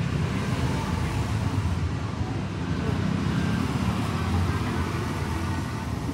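Steady low rumble of background noise, like traffic or a busy space, with no distinct events.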